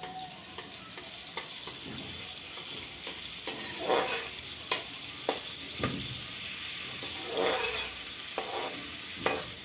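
Melted butter sizzling and foaming in a hot metal kadhai while a steel spoon stirs it, with a steady hiss. The spoon scrapes and knocks against the pan several times in the second half.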